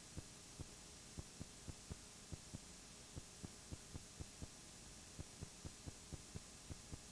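Near silence: a faint steady hum and hiss, with soft low ticks about three times a second, unevenly spaced.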